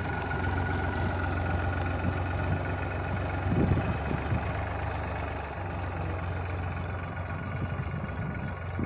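Tractor diesel engine running steadily while pulling a reversible mouldboard plough through the soil. There is a brief low rumble a little over three seconds in.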